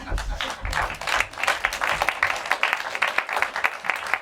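Audience applauding, a dense patter of claps that builds up about a second in.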